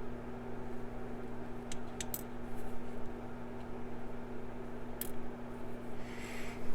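A few short, sharp clicks of small metal lock parts being handled while a padlock is taken apart: a couple close together about two seconds in and one more near five seconds. Under them runs a steady electrical hum.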